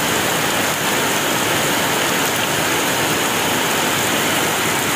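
Heavy rain pouring steadily onto a flooded paved yard, a dense even hiss of drops falling into standing water.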